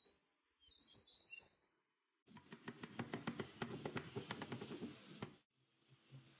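Wood glue squeezed from a plastic bottle onto a board end, with a few faint squeaks. About two seconds in, a glued piece of wood is rubbed back and forth against a board, giving a dense wood-on-wood scraping full of small clicks for about three seconds, which stops suddenly.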